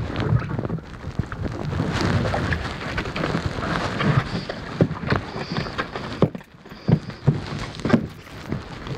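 Plastic stretch wrap crackling as it is pulled off the roll and wound around a sea kayak's hull, with irregular clicks and water splashing against the boat.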